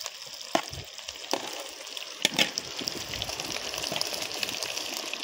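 Sliced onions sizzling as they drop into hot oil in a clay pot: a steady hiss with a few sharp pops and clicks.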